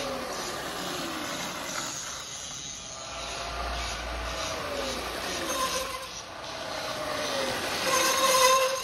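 Sur-Ron electric dirt bike passing, its motor and drivetrain whining in pitches that fall several times as it slows under front braking, with tyre hiss on the road. It is loudest near the end as it comes up close.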